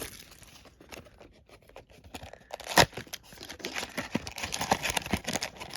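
Pokémon card booster bundle packaging being handled: the opened box and the foil packs inside crinkling and rustling. There is a single sharp crackle about three seconds in, then a busy run of small crackles.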